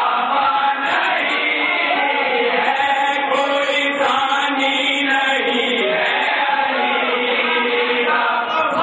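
A crowd of men chanting together, a loud, steady devotional chant from many voices at once.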